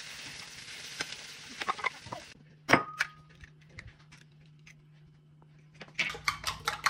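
Thin potato slices sizzling in a frying pan as a spatula stirs them with light clicks; a bit over two seconds in the sizzle cuts off and an egg is cracked on the rim of a ceramic bowl with one sharp knock. Small ticks follow, then a quick run of clicks near the end.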